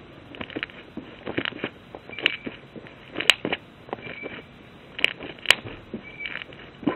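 Glue-and-borax slime being stretched and folded by hand, its trapped air bubbles popping in scattered sharp pops and crackles, the loudest about three seconds in and twice around five seconds in.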